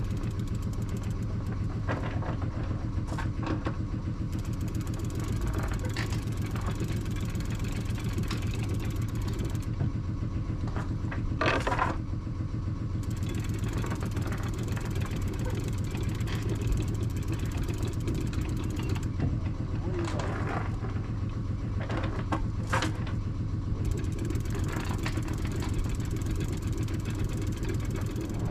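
The boat's inboard engine idling steadily with a fast, even pulse, with several short clanks as the anchor is raised at the bow.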